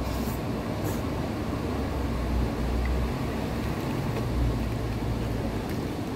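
Steady low rumbling background noise, with two light clicks in the first second.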